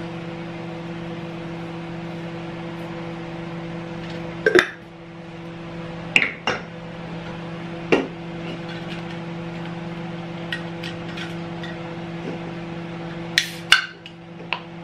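A glass spice jar and a metal can handled on a kitchen counter: scattered sharp clinks and taps as they are set down and picked up, over a steady low hum.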